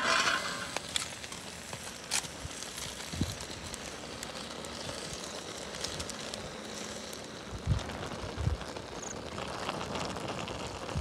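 Open wood fire crackling under a steaming pan of instant noodles, with a short rustle at the start and two low thuds about two-thirds of the way through.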